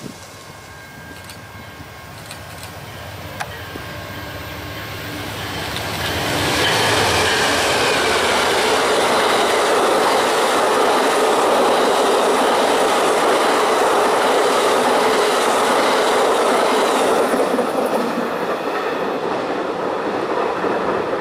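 Amtrak passenger train led by two P42DC diesel locomotives passing close at speed. The rush of engines and wheels on rail builds over the first six seconds, stays loud for about ten seconds as the double-deck cars go by, then fades as the train recedes.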